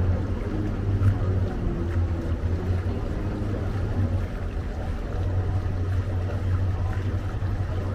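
Tour boat's engine running with a steady low drone while under way, over a haze of water and wind noise.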